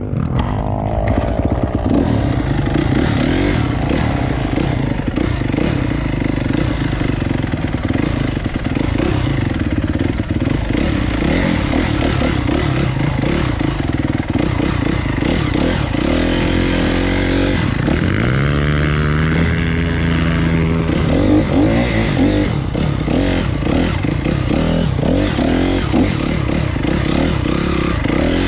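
Dirt bike engine running under changing throttle during off-road riding, its pitch dropping and then climbing again about two-thirds of the way through, with scraping and rattling over it.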